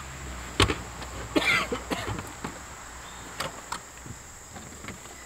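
Gear being handled in an SUV's open cargo area: a sharp knock, then a rustle of bags or items being moved and a few light clicks. A steady high insect buzz sounds underneath.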